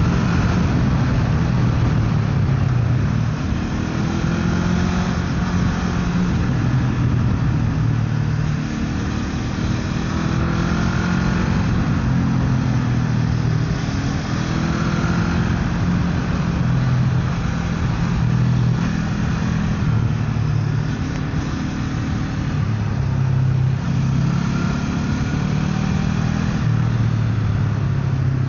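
Motorcycle engine running under way, its pitch rising and falling repeatedly with throttle and gear changes, over a steady rushing noise.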